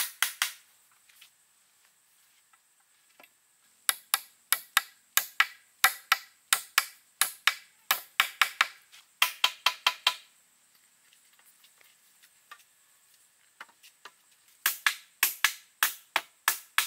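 A hand tool chopping wood in quick runs of sharp strikes, about three a second, that stop and start again twice.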